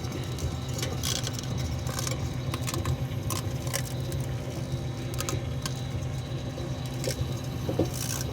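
Microwave oven running with a steady hum, with irregular sharp crackles and pops from the metallised EMF beanie arcing and burning inside it.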